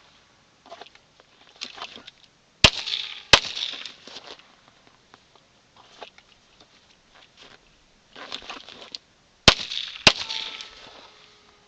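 Handgun shots fired in pairs: two shots about two-thirds of a second apart a little over two seconds in, and two more near the end, each dying away over about a second.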